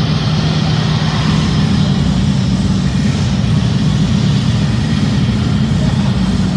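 A steady, loud roar of dance-performance music and a large crowd echoing through a gymnasium hall, blurred into a dense rumble heaviest in the low range.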